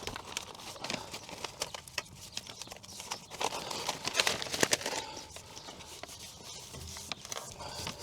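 Crinkling and crackling of a self-adhesive sound-deadening sheet as its backing paper is peeled off and the sheet is pressed into place, with a flurry of sharper crackles about halfway through.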